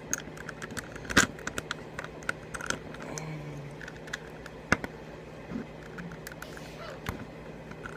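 Plastic Rubik's Cube pieces clicking and knocking as they are handled and pushed into the cube, in irregular small clicks with sharper ones about a second in and near five seconds.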